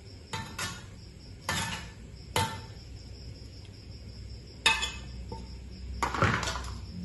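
A spatula knocking and scraping against a wok and a stone mortar as fried tomato and chili are scooped across: five sharp knocks over the first five seconds, then a longer scrape about six seconds in. Crickets chirp steadily in the background.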